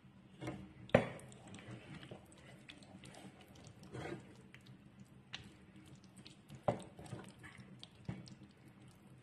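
Wooden spoon stirring thick pasta and potatoes in a metal pan: soft squelching with a few sharp knocks of the spoon against the pan, the loudest about a second in.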